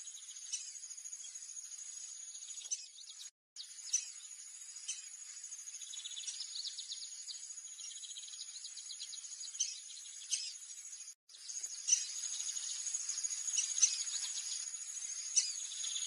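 Steady high-pitched insect trilling with short sharp bird chirps about once a second or two, and bursts of rapid bird trills. The sound drops out completely twice for a moment.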